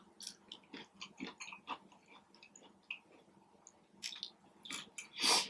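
A person chewing food close to the microphone, with quick wet mouth clicks and smacks in the first couple of seconds. A few louder noisy bursts follow near the end.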